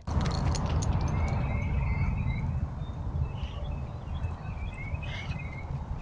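Small birds chirping in quick twittering runs over a steady low rumble on the trail camera's microphone, with a few short clicks in the first second.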